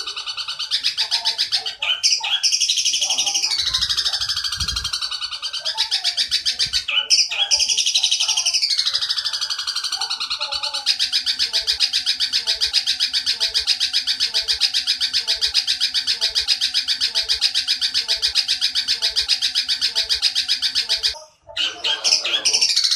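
Looped bird-song track for training a long-tailed shrike. Shrill, falling, rasping calls repeat every two seconds or so; from about eleven seconds in a long unbroken rapid chatter follows, the drawn-out 'nyerecet' of a Eurasian tree sparrow, and it breaks off briefly near the end.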